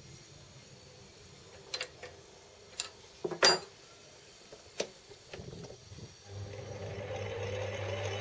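A few sharp clicks from the lathe's switch box, the loudest about three and a half seconds in, then the small benchtop lathe's motor starts about six seconds in and runs with a steady hum. It spins a faceplate carrying an off-centre aluminium lever that has no counterbalance on it yet.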